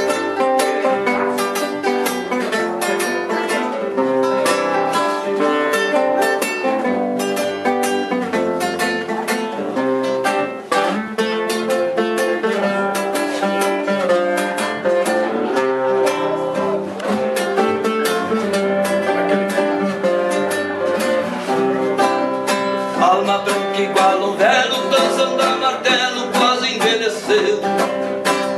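Nylon-string classical guitar playing an instrumental passage between sung verses, with rhythmic strummed chords and picked melody notes.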